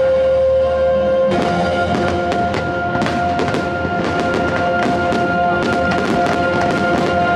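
Fireworks show music with steady held notes, mixed with a dense barrage of fireworks shells bursting, the cracks and booms starting about a second in and coming many times a second.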